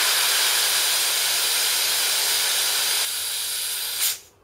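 Compressed air hissing steadily out of a belt-drive workshop air compressor's tank as it is drained to empty. The hiss drops a little about three seconds in, flares briefly and then cuts off suddenly just after four seconds.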